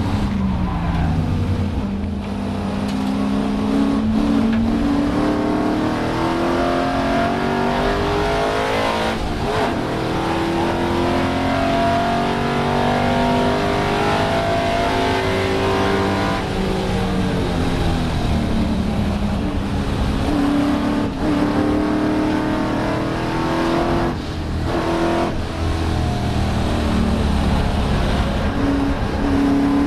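Race touring car engine heard from inside the cabin, running hard under load. Its pitch climbs through the gears, breaking and dropping at each gear change, and it comes off and back on the throttle a few times in the later part.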